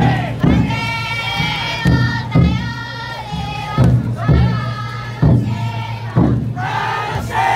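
Drum inside a futon daiko festival float beaten with deep thuds about once a second, some in quick pairs, while a crowd of bearers and riders chants in unison.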